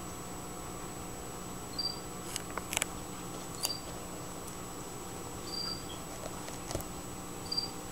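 A cricket chirping: short, high chirps repeating about every two seconds over a faint steady hum. A few soft clicks come about two and a half seconds in and again near seven seconds.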